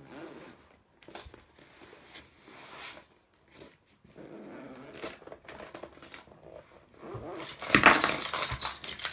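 Packaging rustling and crinkling as a surprise bag is opened, with a louder burst of rustling near the end.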